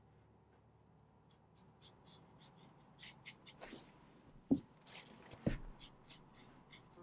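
Watercolour brush handling at a painting desk: faint brushing on paper and scattered light clicks, with two soft knocks about a second apart near the middle.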